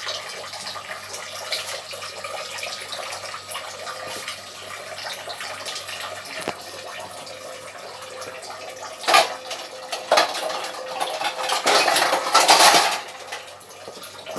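Metal cookware and utensils clattering against an aluminium cooking pot, over a steady hiss: single sharp knocks about nine and ten seconds in, then a dense burst of clattering near the end.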